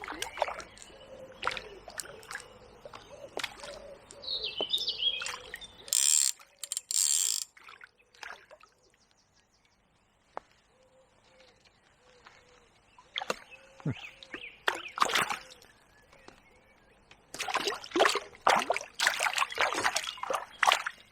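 Splashing at the water's surface and clicks of tackle handling as a small roach is brought in on float gear, with birds calling. The splashing and clatter grow busy near the end.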